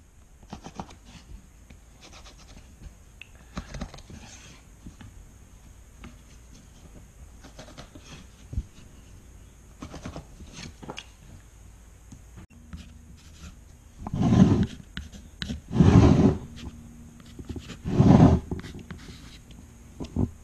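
Pen scratching short marks onto pine boards, with light taps and clicks of the wood pieces being handled. About two-thirds through, three loud rubbing scrapes come, each under a second and a couple of seconds apart, over a faint steady hum.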